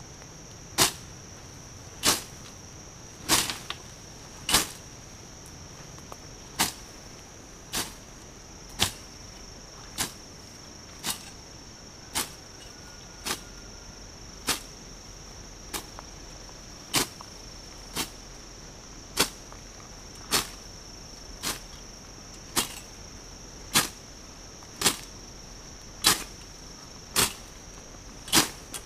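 A hand-swung swing blade (weed whip) slicing through weeds and brush, a sharp swish with each stroke, about one stroke a second in a steady rhythm. A steady high insect drone runs underneath.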